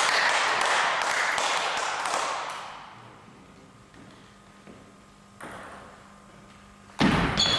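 Table tennis: a loud rush of noise fades over the first two or three seconds, then the hall goes quiet. Near the end a serve starts a rally, with sharp hits of the ball off bat and table.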